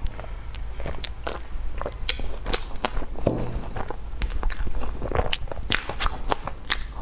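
Close-miked mouth sounds of a person eating: at first a swallow from a drinking bottle, then wet chewing of a soft cheese-filled bread bun, with many irregular small smacks and clicks.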